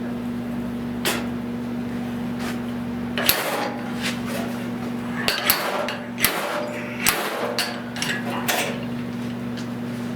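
Slide hammer knocking sharply about seven times, bunched in the middle, pulling a low spot out of a steel 1970 Buick Wildcat fender. A steady low hum runs underneath.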